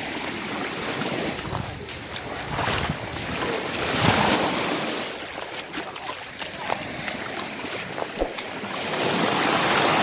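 Small sea waves lapping and washing up a sandy shore. The wash swells about four seconds in and again near the end.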